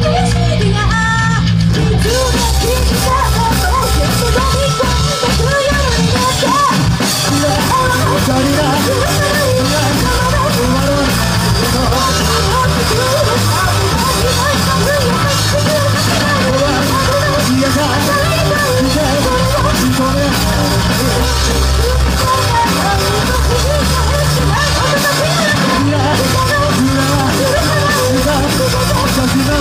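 Live rock band with a woman singing lead over drum kit and electric guitars. A held chord rings at first, then the drums and cymbals come in about two seconds in and the full band plays on under the singing.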